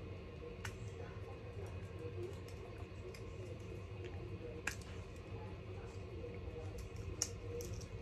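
A few small sharp clicks a few seconds apart, from wire terminals being pulled off and pushed onto the contacts of a coffee grinder's on/off switch, over a faint steady hum.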